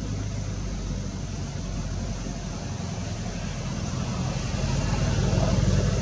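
A steady low engine hum, growing louder near the end.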